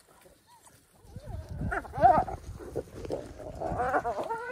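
African wild dogs and hyenas squabbling over a carcass: after about a second of near quiet, a run of rising-and-falling whining, squealing calls over a low rumble, loudest about two seconds in and again near the end.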